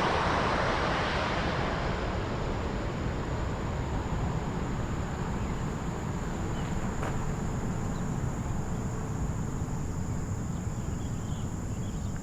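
Jet airliner noise fading away during the first couple of seconds as the aircraft moves off. Then a steady low rumble with a thin, steady high-pitched tone.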